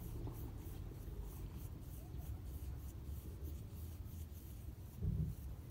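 Cat purring in a steady low rumble close to the microphone while fingers scratch its fur, with a faint rubbing, scratching sound over it. A soft, louder bump about five seconds in.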